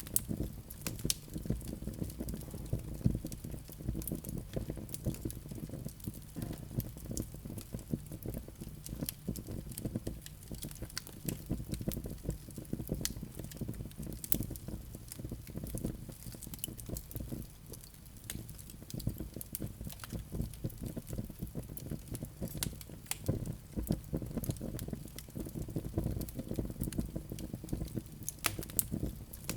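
Wood fire burning, with irregular sharp crackles and pops over a steady low rumble of the flames.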